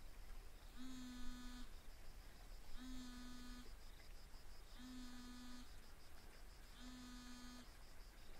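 A Huawei smartphone buzzing on a table from an incoming call: four steady buzzes, each just under a second long, about two seconds apart.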